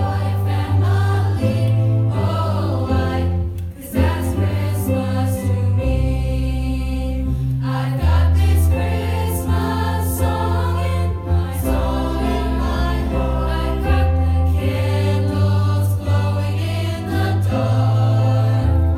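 A choir singing in harmony over a deep, sustained bass line that changes note every second or two.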